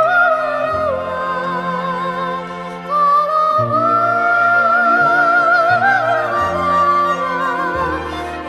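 Background music: a slow melody held in long notes with vibrato over sustained low chords.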